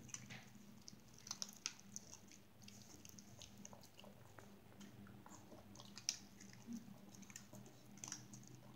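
A small dog chewing and crunching dog treats: soft, scattered crunches, with a few sharper ones about a second and a half in, around six seconds, and near the end.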